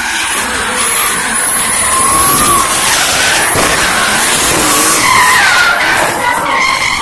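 Drift car sliding through a corner: tyres screeching while the engine is held at high revs, its note rising and falling.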